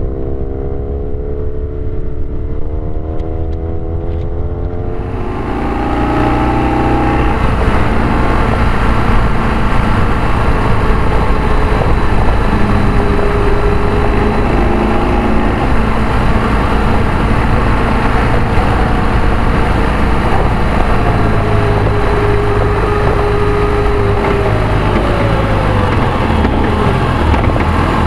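Motorcycle engine recorded by a bike-mounted camera, its pitch rising and falling with throttle and gear changes on a climbing, twisting road. From about five seconds in, heavy wind rush over the microphone nearly covers the engine.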